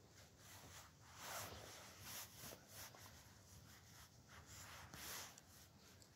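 Near silence, with a few faint, brief rustles.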